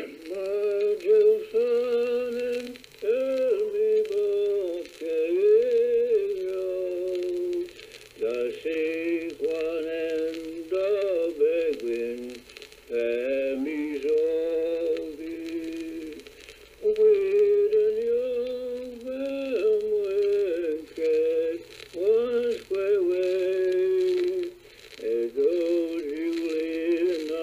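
A single voice singing a Passamaquoddy song in short, wavering phrases with gliding pitch and no instruments, over a faint steady hum.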